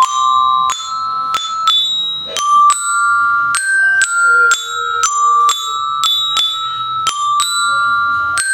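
A belira (bell-lyra glockenspiel) played with a mallet: a simple melody of single struck notes, about two to three a second, each ringing until the next.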